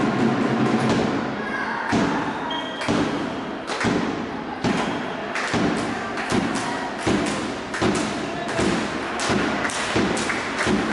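Irregular thuds and knocks of a match in play, roughly one or two a second, as the ball or puck is struck and hits the boards.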